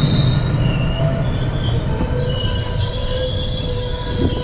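GO Transit bilevel passenger train moving slowly along the platform with a low rumble, its wheels giving several high-pitched metallic squeals that waver in pitch partway through. There is a brief knock near the end.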